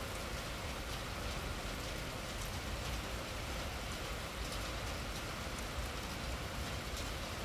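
Torrential rain falling steadily on a street, a dense even hiss with scattered drop splashes.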